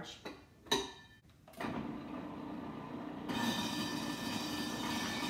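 A few plastic clicks as the lid of a Breville food processor is locked on, then its motor starts about a second and a half in and runs with a steady hum. From about three seconds in the sound turns fuller and brighter as carrots go down the chute onto the spinning shredding disc.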